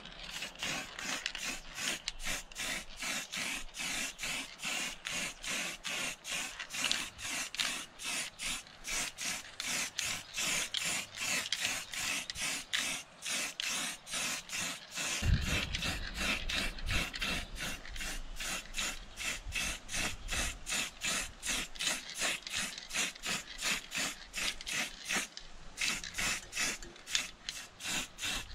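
Aerosol spray paint hissing from a can in short, quick bursts, about three a second, as engine parts are coated.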